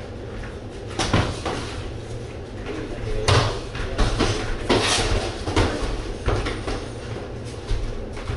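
Gloved punches and kicks landing during kickboxing sparring: irregular sharp slaps and thuds, the loudest a little after one second and just past three seconds in.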